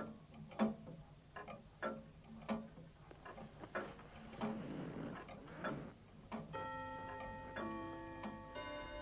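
Longcase (grandfather) clock ticking steadily, about three ticks every two seconds. A soft rushing noise follows midway, then music with long held notes comes in.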